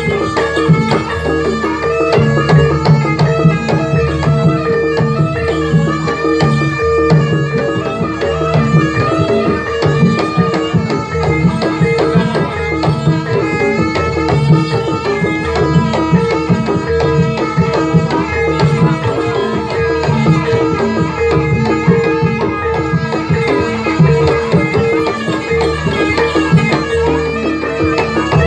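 Javanese jaranan (kuda lumping) ensemble music: kendang hand drums and gamelan percussion playing a continuous, busy piece over a steady held note.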